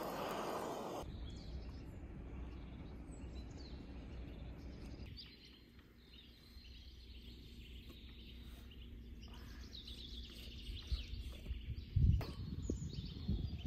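A handheld gas torch hisses for about the first second, then stops. Birds chirp from about five seconds in. About twelve seconds in comes one heavy chop of a cleaver through a raw goose onto a wooden cutting board.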